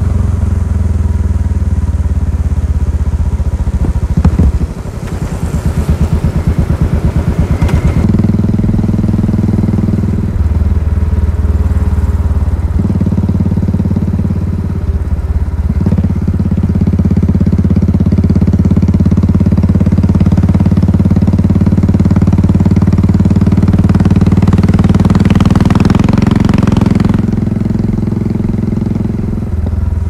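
Royal Enfield Classic 500's single-cylinder engine and exhaust under way on the road. The engine note steps up and down several times as the bike is ridden, with a brief drop about four seconds in and a louder pull shortly before the end that then eases off.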